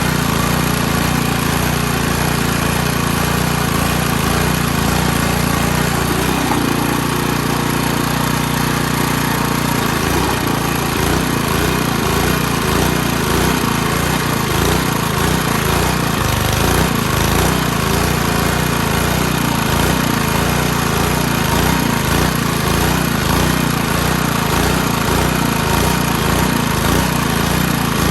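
Small gasoline engine running steadily with a rhythmic low chugging. Between about six and ten seconds in, the chugging briefly gives way to a smoother, steadier note before it returns.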